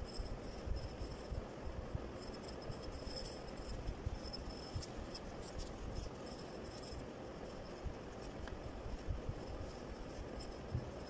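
Graphite pencil scratching over paper while shading, with irregular soft low bumps throughout.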